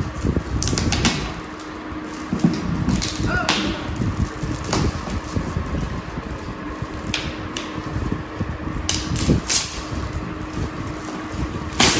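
Shiny foil gift-wrapping paper crinkling and tearing in irregular rustles as a present is unwrapped by hand, over a steady low hum.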